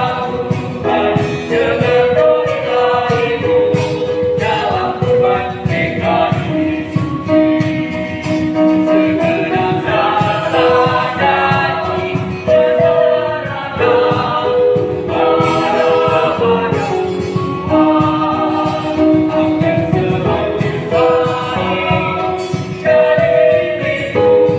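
Mixed choir of young male and female voices singing a church song in harmony, with long held notes.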